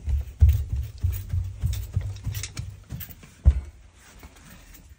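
Footsteps climbing a flight of stairs: a run of low thuds about three a second, with one loud thump about three and a half seconds in, then lighter steps.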